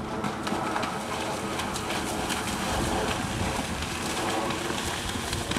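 A horse's hooves splashing through shallow water at a canter, a continuous spatter of many small irregular splashes.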